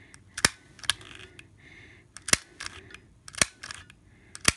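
Manual handheld mini sewing machine clicking as it is squeezed: about five sharp clicks roughly a second apart, one per press, each press making one stitch and moving the fabric along.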